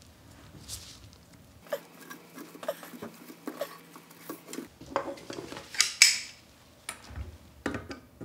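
Light metallic clicks, taps and scrapes of a sheet-metal CNC way cover being handled while a new rubber wiper is worked into its track, with a louder scrape about six seconds in.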